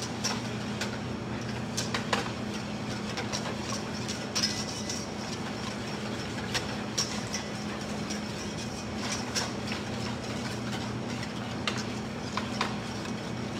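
Wire whisk scraping and clinking against a stainless steel bowl as lemon curd is stirred over a gas burner, with irregular sharp clinks over a steady low hum.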